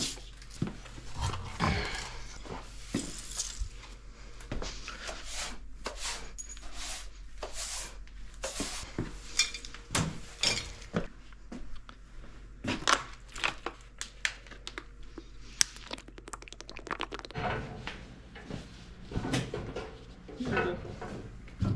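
Irregular clinks, clanks and knocks of metal parts and tools being handled and set down.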